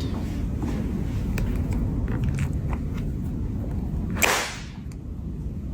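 Light clicks and taps from handling the phone and its packaging, over a low steady rumble. About four seconds in comes a sharp whoosh lasting about half a second, falling in pitch.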